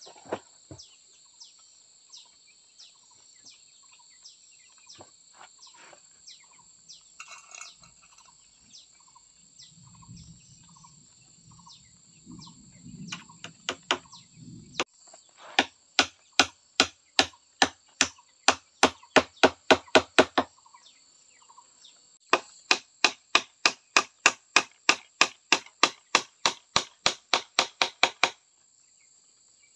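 Two runs of quick, even hammer blows on bamboo and wood, about three a second, starting about halfway in. Before them only a steady high insect drone with small repeated chirps.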